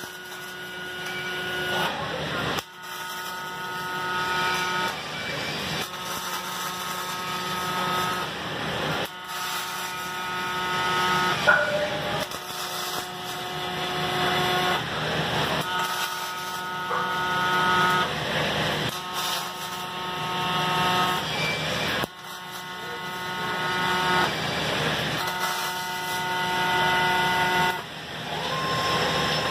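Robotic arc welding on steel rotor plates: the welding arc crackles and hisses through a series of welds of a few seconds each, each one cutting off abruptly. Between and under the welds, the robot cell gives off a steady whine of several held tones.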